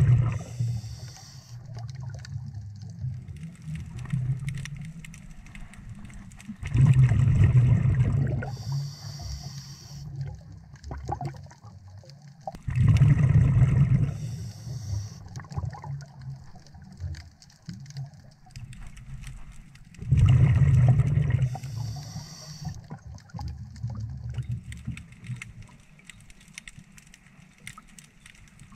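A scuba diver breathing through a regulator underwater: loud low bubbling exhalations about every six or seven seconds, each followed by a short high hiss from the regulator.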